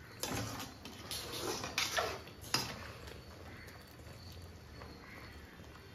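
A perforated metal ladle stirring and scraping against an aluminium kadai of thick curry, with several scrapes and clinks in the first two and a half seconds, then a quieter stretch.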